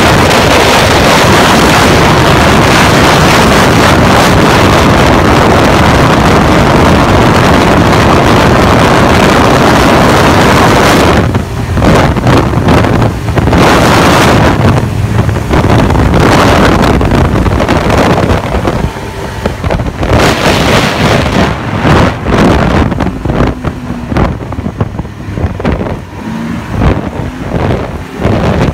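Snowmobile riding along a trail, its engine under heavy wind rush on the microphone. About eleven seconds in, the wind noise turns patchy and gusty and drops in and out, letting a steady engine tone show through.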